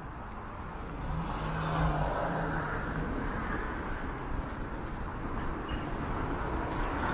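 A car driving past on the street, its engine and tyre noise swelling about a second in and holding steady.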